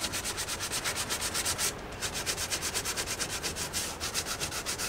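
A sheet of sandpaper rubbed by hand over screw heads in a plywood panel, smoothing off rough bits before filler goes on. Rapid back-and-forth strokes, about eight a second, with a short break just under two seconds in.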